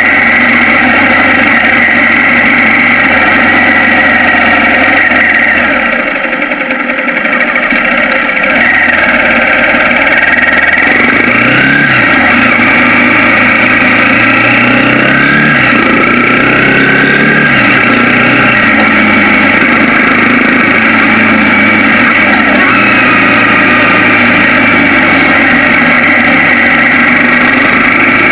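Bajaj Pulsar 200NS single-cylinder motorcycle engine running loud while ridden, dipping briefly about six seconds in. Its pitch rises and falls several times in the middle stretch as the rider speeds up and eases off.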